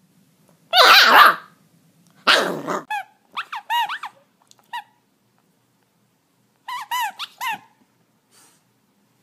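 Puppy barking: two rough barks, then two quick runs of short high-pitched yips.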